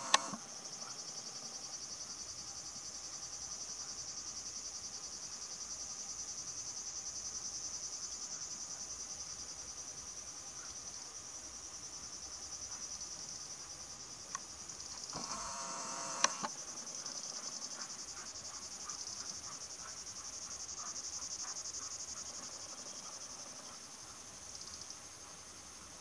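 Insects chirring steadily in a high, fine pulsing trill, with a brief louder noise about fifteen seconds in.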